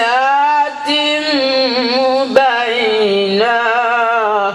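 A man's solo Quran recitation into a microphone: one voice drawing out long, melodic, ornamented phrases, gliding up and down in pitch. A brief sharp click sounds a little past halfway.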